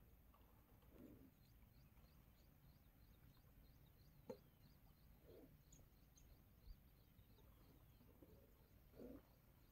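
Near silence with faint, repeated small bird chirps and a single soft click about four seconds in.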